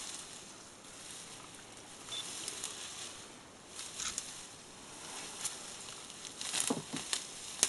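African elephant feeding at close range: irregular rustling and tearing of grass and leafy twigs as its trunk pulls up vegetation, with a cluster of sharper crackles near the end.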